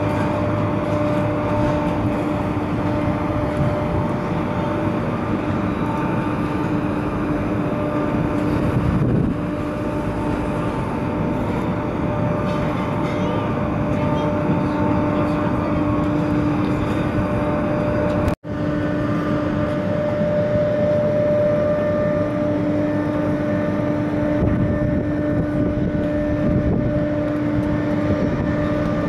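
Four Lycoming ALF 502 turbofan engines of a British Aerospace 146-200 running at taxi power: a steady rush with a held humming whine. The sound breaks off for an instant a little past the middle, then carries on unchanged.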